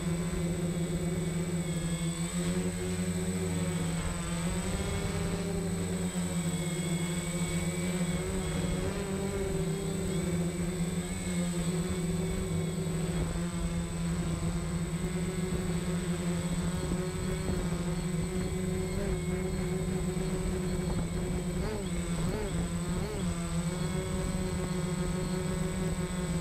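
DJI Phantom quadcopter's motors and propellers buzzing steadily, heard from the camera mounted on the drone itself; the pitch wavers now and then as it manoeuvres.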